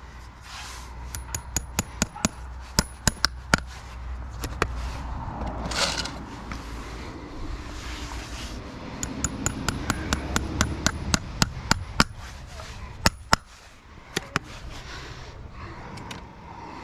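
Farrier's hammer striking steel in two runs of quick, light blows, each with a short metallic ring. The first run starts about a second in and the second about nine seconds in.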